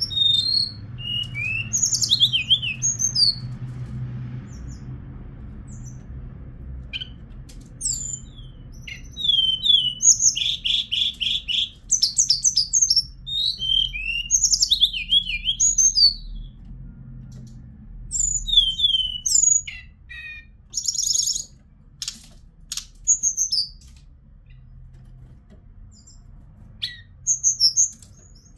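Hill blue flycatcher (Cyornis whitei) singing: varied phrases of high whistles, chirps and fast trills, in several bouts with short pauses between them.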